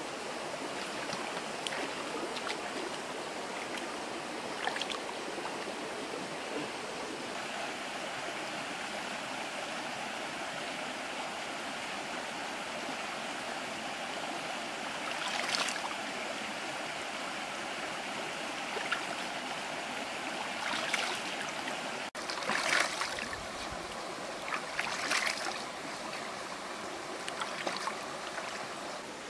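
Shallow rocky stream running steadily, with several short splashes from hands working in the water, the first a little past halfway and the rest clustered in the last third.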